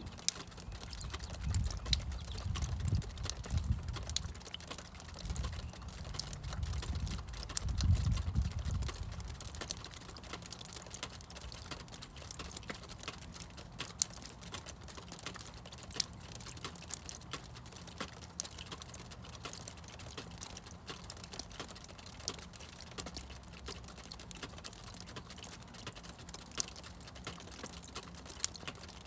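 Meltwater from thawing snow dripping: many irregular drips and small splashes, some louder than others. A low rumble runs underneath for the first eight or nine seconds, then fades.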